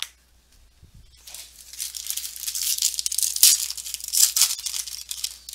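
Foil wrapper of a Panini Playbook football card pack being torn open and crinkled by hand, a crackling rustle with sharp clicks, starting about a second in.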